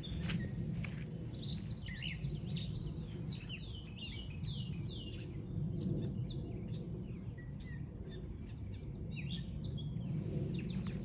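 Songbirds singing in spring woodland, with a run of quick down-slurred notes in the middle among other chirps, over a steady low background rumble. Footsteps on the trail are heard at the start and again near the end.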